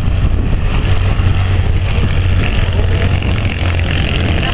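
Citroën 2CV race cars' air-cooled flat-twin engines running hard as the cars pass, a loud steady low drone.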